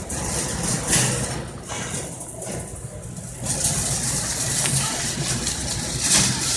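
Shopping cart rolling across a hard store floor, a continuous rattling rumble, with a couple of sharp knocks and background store chatter.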